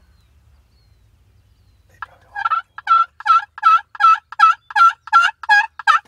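A run of about ten loud, evenly spaced turkey yelps, starting about two seconds in.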